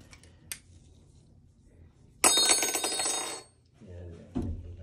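A loud electronic ringing tone, like a phone ringtone, starts suddenly about two seconds in, lasts just over a second and cuts off sharply. A light knock comes near the end.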